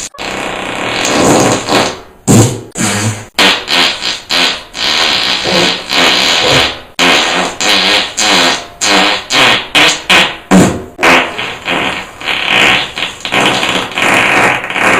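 A rapid string of short, loud fart sound effects, about two or three a second, some with a buzzy pitch.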